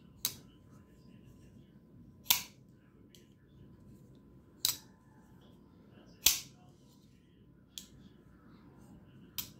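Damned Designs Djinn XL folding knife being flipped open with its front flipper and closed again, over and over. There are six sharp snaps and clicks about two seconds apart as the blade swings out and locks and then folds back. Four of them are loud and the last two fainter.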